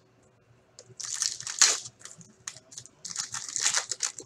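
Foil wrapper of a 2017-18 Upper Deck Series 1 hockey card pack crinkling and tearing as it is pulled open by hand. The rustling comes in two bursts, starting about a second in and again near the end.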